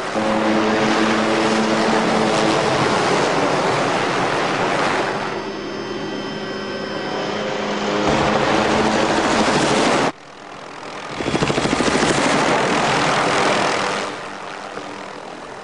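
Helicopter engine and rotor noise, loud and steady. It drops away suddenly about ten seconds in, then swells back up before easing off near the end.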